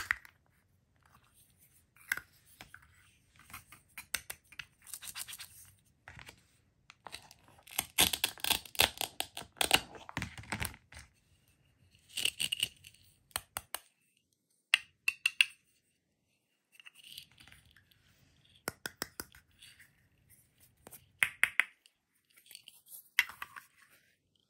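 Plastic toy food egg being pulled apart and handled: scratchy rasps from its hook-and-loop fastener pads and sharp clicks of the hard plastic pieces, in irregular bursts with short pauses.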